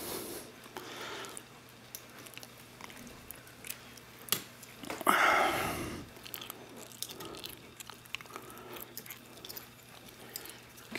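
Single-pin picking of a Master Lock Pro Series padlock: small clicks and scratches of the pick and tension wrench working the pins in the keyway. About five seconds in there is a louder rustling noise lasting about a second.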